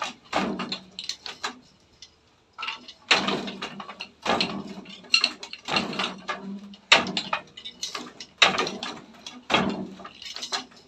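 Wooden handloom weaving inabel cloth: repeated bursts of wooden knocks and clatter, about one a second, as the shuttle is passed and the beater is pulled against the weft.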